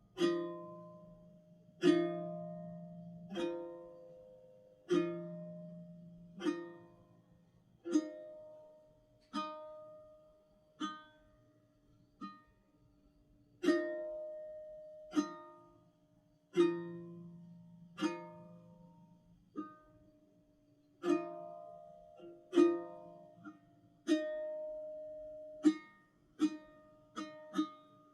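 Background music of slow plucked-string chords, struck about every one and a half seconds and each left to ring and fade, with a quicker run of notes near the end.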